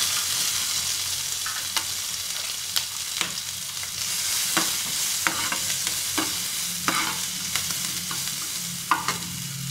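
Chopped capsicum sizzling in a little hot oil in a steel frying pan, the sizzle easing off slightly as it cooks. A steel spoon stirs and tosses the pieces, scraping and clicking against the pan a dozen or so times.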